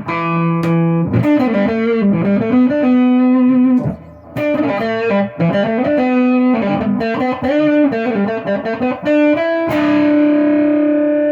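Vintage hollow-body electric guitar played through an amplifier in quick single-note melodic runs, with a short break about four seconds in. Near the end a final note is left ringing.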